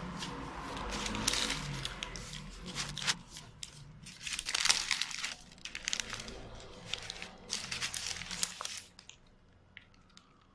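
Paper burger wrapper of a Burger King Whopper crinkling and rustling in quick irregular bursts as it is handled and folded back from the burger, stopping about nine seconds in.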